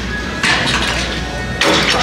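Background music with a steady bass line, and two short sharp hits about a second apart.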